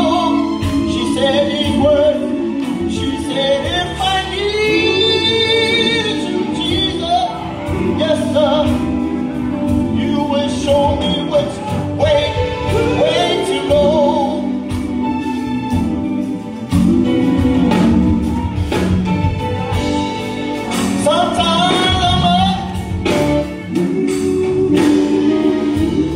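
A live gospel group singing with band accompaniment, amplified through a church PA. Male voices lead with wavering vibrato and melodic runs over keyboard and steady percussive hits.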